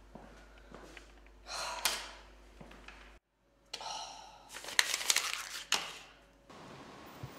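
A taped paper note being pulled loose, then handled and crumpled: a short crackle of paper and tape about a second and a half in, then a longer run of sharp paper crinkles from about four to six seconds in.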